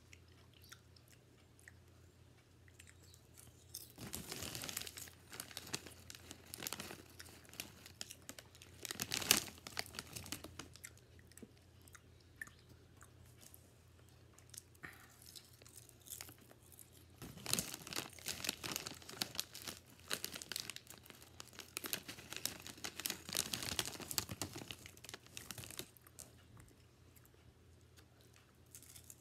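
A plastic snack bag crinkling and crunching as it is handled close by, in bursts a few seconds in, again about nine seconds in, and through much of the second half.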